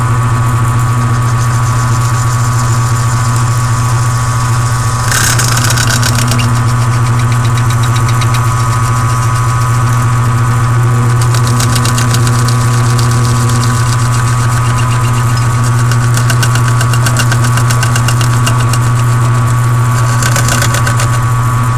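Milling machine running, its end mill cutting a slot into a clear plastic camera housing: a steady motor hum with a high whine, and a louder rasp of cutting about five seconds in and again near the end.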